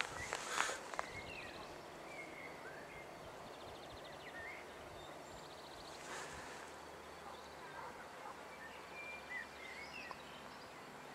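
Quiet outdoor ambience with small birds chirping now and then and a couple of short buzzy trills, plus a brief hiss about six seconds in.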